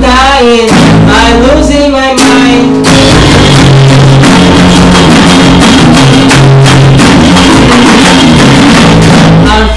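A small band playing a rock song: electric bass, acoustic guitar and a Roland electronic drum kit. A sung line rides over them for the first few seconds. About three seconds in the voice drops out and the drums and cymbals crash on in a loud instrumental stretch.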